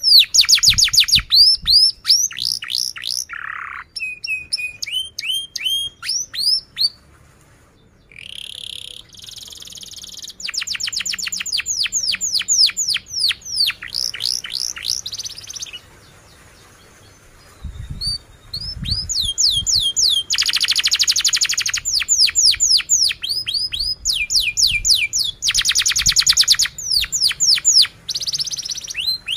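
Domestic canary singing a long song: runs of quick, falling whistled notes and several very fast rattling trills, broken by two short pauses.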